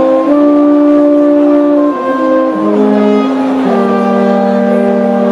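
Brass band with tuba, horns and trumpets playing slow, sustained chords that move every second or so, settling on a long held chord about two-thirds of the way through.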